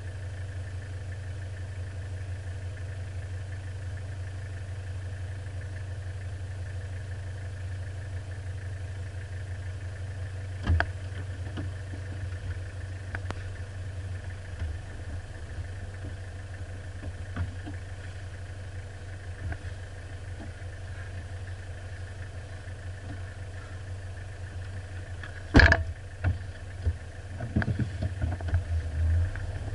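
Four-wheel-drive vehicle's engine idling steadily, heard from inside the cab. Occasional knocks come through, a loud sharp one about 25 seconds in, then a quick run of knocks near the end.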